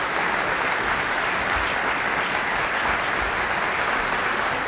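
Audience applauding steadily, a dense wash of many hands clapping.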